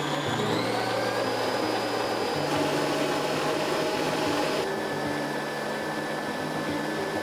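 Kenwood Chef stand mixer running, whisking egg whites: a steady motor hum and whine that climbs briefly as the motor comes up to speed just after switching on, then holds. The tone shifts about four and a half seconds in.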